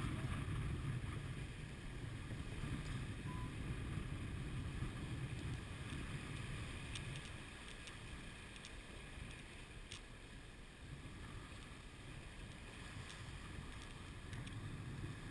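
Wind buffeting the microphone over the wash of water along the hull of a J/30 sailboat under sail. The rumble eases a little about halfway through, with a few faint clicks.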